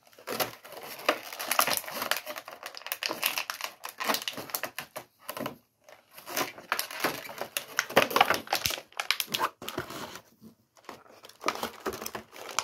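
Clear plastic bag crinkling as it is handled and opened, in irregular spells with short pauses about halfway through and near the end.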